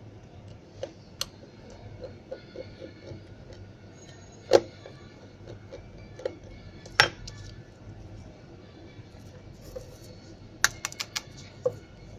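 Light clicks and taps of a precision screwdriver and a smartphone's plastic frame being handled on a work table. There are scattered small clicks, two sharper clicks a few seconds apart around the middle, and a quick run of clicks near the end.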